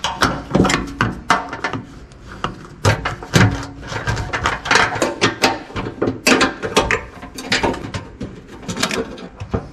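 A rapid, irregular run of metal clicks and clanks with plastic knocks: a wrench working the nuts on a steel strap bracket while the plastic coolant expansion tank is unbolted and lifted off.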